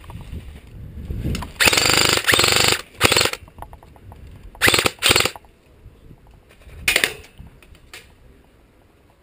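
Airsoft electric rifle firing on full auto in bursts, a fast rattle. A long burst of about a second starts about one and a half seconds in, followed by several short bursts, the last about seven seconds in.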